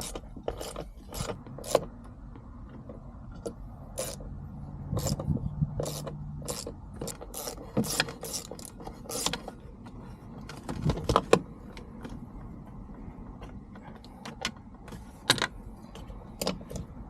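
Irregular clicks, clinks and a few louder knocks of hand tools and metal and plastic parts being handled while the stock shifter plate and cables of a Toyota MR2 are worked loose.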